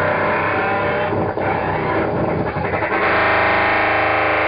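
Live noise music: loud, dense distorted noise that stutters and breaks up in the middle, then about three seconds in gives way to a steady, buzzing distorted drone.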